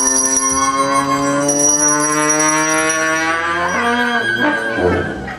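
Brass band playing: one long held brass note that sags slightly in pitch, with a bell ringing above it. About four seconds in, it breaks into a few shorter notes at changing pitches.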